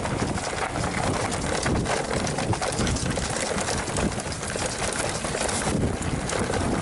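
Mountain bike descending a rough trail: tyres rolling over dirt and rocks, with a steady run of rattles and knocks from the bike and wind noise on the microphone.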